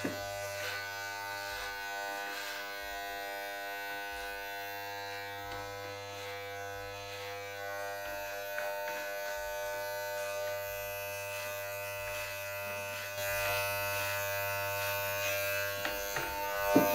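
Corded electric hair clippers buzzing steadily as they cut short hair at the back of the head, a little louder in the last few seconds.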